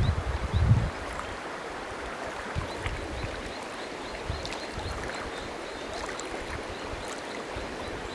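River water running steadily, with a brief low rumble in the first second.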